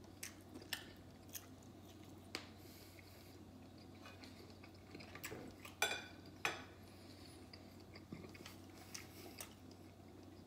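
A person chewing food, with occasional light clinks of a fork and knife against a ceramic plate; two louder clinks come about six seconds in. A faint steady hum underneath.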